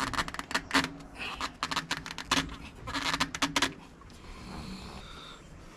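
A quick, irregular run of clicks and scrapes from parts and hand tools being handled on metal during a filter change, stopping about three and a half seconds in.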